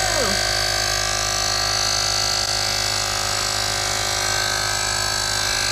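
Fanttik X8 Apex cordless tire inflator running steadily with a loud, even buzz, pumping a car tire from 36 PSI toward its preset 42 PSI.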